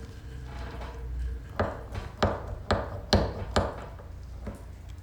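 Small metal parts and hand tools being handled during a brake master cylinder rebuild, giving about six sharp clicks and knocks roughly half a second apart over a low steady hum.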